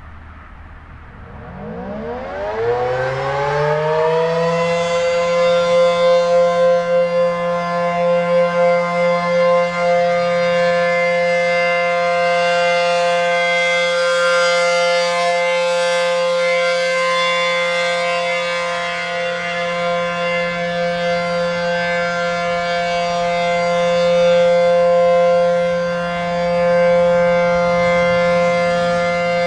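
ACA P-15 Penetrator outdoor warning siren (9/12 port) winding up from silence to full pitch in about four seconds, then holding a steady, shrill multi-tone alert signal whose loudness swells and dips as the rotating head turns. The slow wind-up marks it as a single-phase unit.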